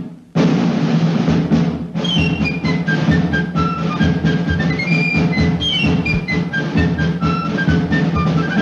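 Orchestral cartoon-soundtrack music. A dense drum roll opens it, then about two seconds in a bright melody of quick stepped notes runs up and down over sustained low chords and timpani strokes.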